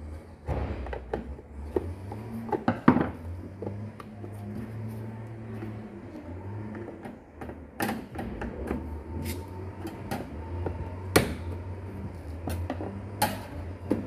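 Plastic clips and cover of a tumble dryer's condensate pump housing clicking and knocking as they are pressed and pried loose with a screwdriver, a handful of sharp clicks at irregular intervals, over a steady low hum.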